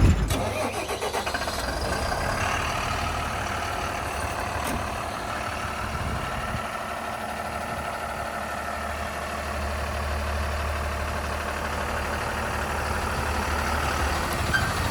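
Heavy diesel engine running steadily at low revs, a low hum that grows a little stronger midway.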